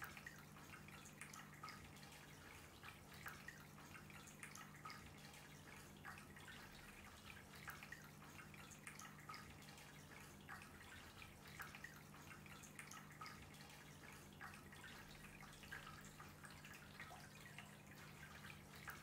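Faint trickling and dripping of water as it runs over a glazed pot fountain into its basin, with a steady low hum underneath.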